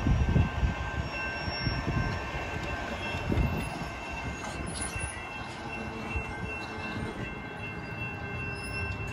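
Railroad crossing warning bells ringing steadily while the crossing gates lift. A Metro light-rail train's low rumble is loudest in the first few seconds and then eases off.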